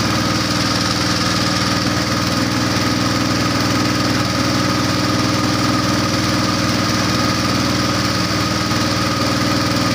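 A small boat's motor running steadily at constant speed: an even drone that holds its pitch.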